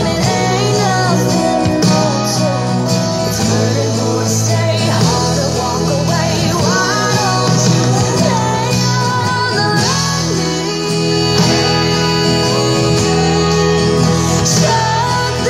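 A country-style song with a singing voice over a full band and steady bass, with an acoustic guitar strummed along.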